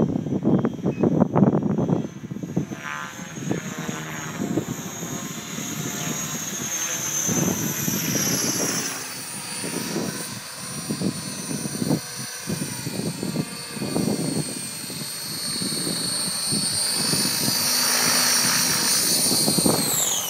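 Align T-Rex radio-controlled helicopter in flight: a steady high whine over the fluttering chop of the rotor blades, the pitch dipping and rising with the throttle. Near the end, after it has landed, the whine falls away steeply as the rotor spools down.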